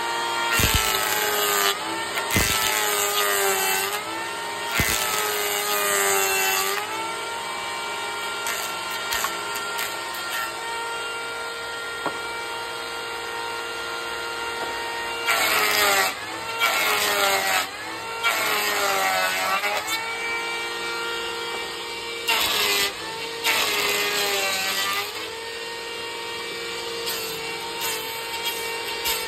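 Belt-driven bench planer running, its cutter shaving wood off cricket bat blades in repeated passes. Each pass is a loud rasping cut with the motor's pitch sagging under the load and then coming back to a steady hum. There are several passes early on, a stretch of steady running, then another run of passes in the second half.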